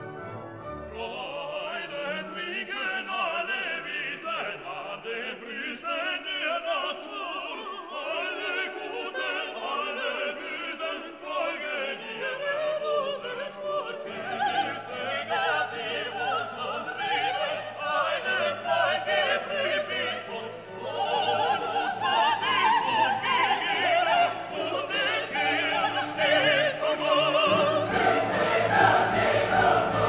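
Classical background music: operatic singing with wavering held notes over an orchestra, growing louder and fuller about two-thirds of the way through.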